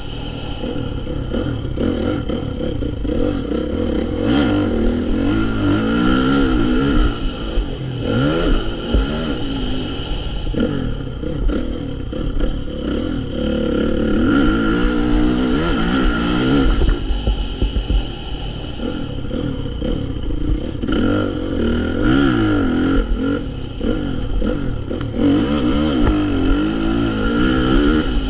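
Motocross dirt bike engine revving up and down over and over as the bike accelerates out of turns and backs off into them, heard close up from an onboard camera. Occasional knocks are heard as it runs over the rough, rutted track.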